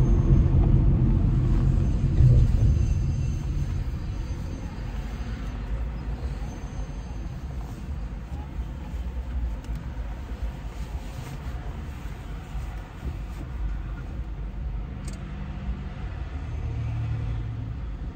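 Low vehicle rumble, loudest in the first two or three seconds and then easing off to a steady, lower level.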